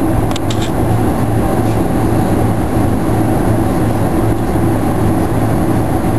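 Cabin noise of a Boeing 747-400 taxiing, heard from inside the cabin: a steady drone from its four turbofan engines, with a low hum running under it.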